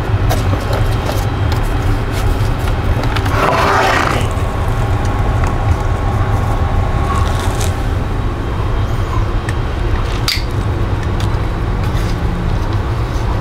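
An NAD 7175PE stereo receiver is handled and stood up on its side on a workbench: a scraping shuffle a little over three seconds in, then a few sharp clicks and knocks of the metal chassis. Behind it runs the steady low rumble of air handlers.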